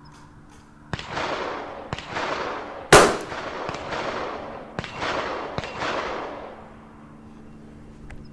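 A single sharp crack of a Tikka T1x .22 LR rifle firing a round, about three seconds in and the loudest sound. Around it come three other gun reports that start suddenly and fade over a second or so, about one, two and five seconds in.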